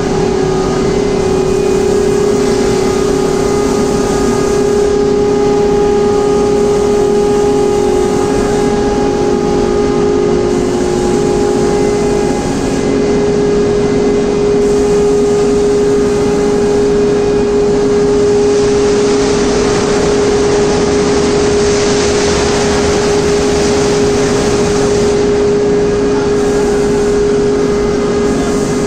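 Induction furnace plant and fume extraction running: a loud, steady industrial hum with one strong tone, over a rushing noise that grows louder for a few seconds about two-thirds of the way through.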